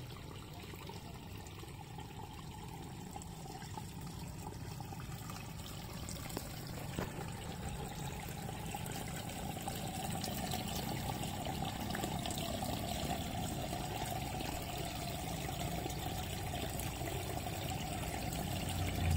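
Water trickling and splashing as a mass of small fish thrash in a shallow pool of water inside a fine mesh net, growing gradually louder.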